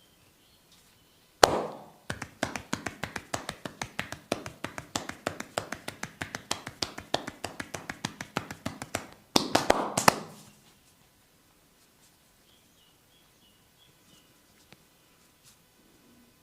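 Percussive massage strikes from a barber's hands on a person's head: a run of quick, even taps, about six a second for some seven seconds. The run opens with one sharp slap and closes with a few louder slaps.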